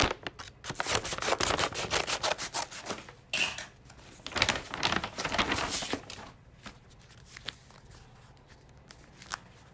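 Paper rustling and tearing as a bid envelope is opened and its pages handled, with scattered clicks and taps. The rustling dies down about six seconds in, leaving a few light taps.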